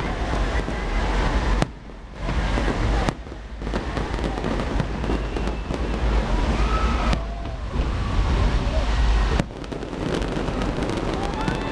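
Fireworks crackling and popping in dense, continuous volleys, with a deep rumble underneath. The sound drops away sharply for a moment a few times.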